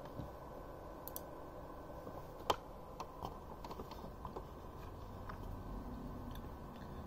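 Scattered faint clicks and key taps at a computer keyboard and mouse, with one sharper click about two and a half seconds in, over a faint steady hum.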